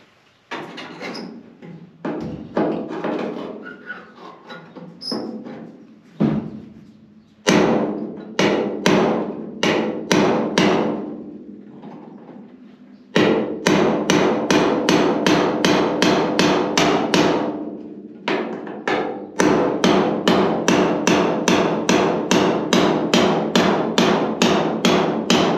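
Hammer striking a chisel held against the inside of a caved-in car roof, driving the sheet steel back out to restore its curve. The blows are scattered at first, then come in steady runs of about three a second, each one ringing.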